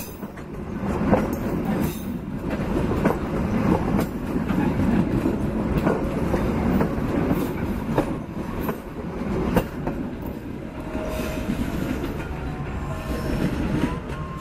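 Passenger train coaches rolling past close by: a steady heavy rumble, with the wheels clacking sharply over rail joints every second or two.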